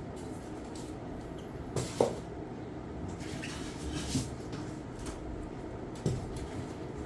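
Handling noises while unpacking: a few separate knocks and clicks over a steady low background hum, the sharpest knock about two seconds in, with smaller ones about four and six seconds in.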